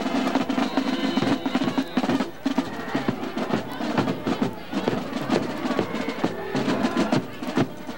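Band music with drums beating a steady run of quick strokes.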